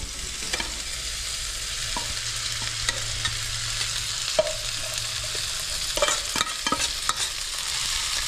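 Boiled mopane worms scraped with a metal spoon out of a metal saucepan into a pan of frying onions and tomatoes: a steady sizzle that grows slowly louder, with scattered clicks and scrapes of the spoon on the pan, busiest near the end.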